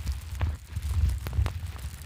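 Wood fire crackling, with irregular sharp pops and snaps over a low rumble.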